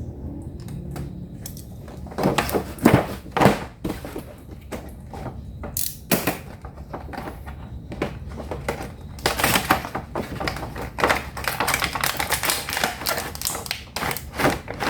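Toy packaging being handled and opened: a few sharp knocks and clicks, then, from about halfway, a dense run of crackling and rustling.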